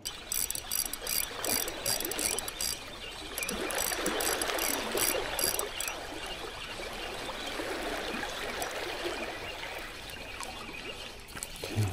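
Seawater lapping and trickling among the rocks of a seawall at the waterline, with a regular ticking through the first half.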